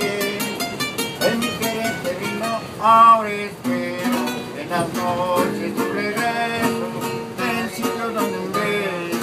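Small acoustic guitar strummed and picked, playing an instrumental passage of a bolero, with a louder wavering note about three seconds in.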